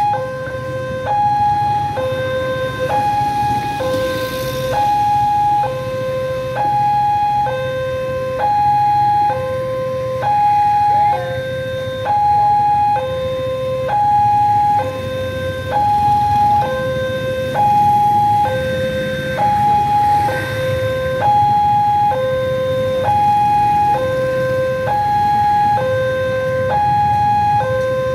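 Railway level crossing warning alarm sounding as the barriers close for an approaching train: two electronic tones, one high and one low, taking turns about once a second.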